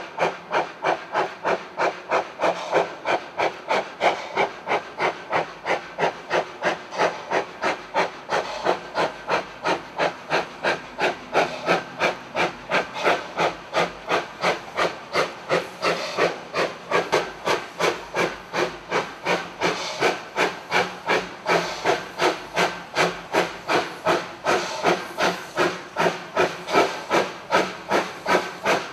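Narrow-gauge NA class steam locomotive 8A working hard up a steep grade with a fully loaded train: slow, even exhaust chuffs at about three beats a second.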